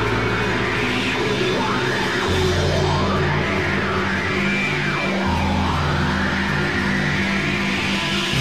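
Heavy rock music: low bass notes held a few seconds each, changing about every three seconds, under a high line that slides up and down.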